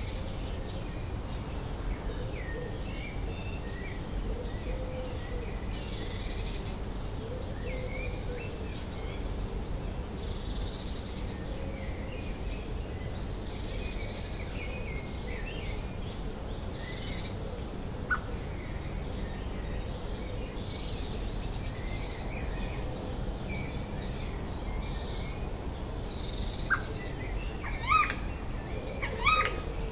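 Dawn chorus: many garden birds singing and calling at once over a steady low rumble, with a low call repeating every couple of seconds. Near the end a closer bird gives a few loud, sharp calls.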